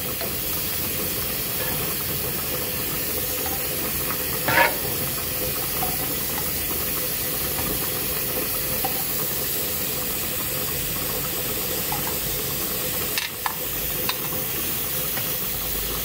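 Hot marmalade being scooped from the pan into a glass jar: a steady hiss from the hot pan, with a few light knocks of the spoon against the pan and jar, the loudest about four and a half seconds in.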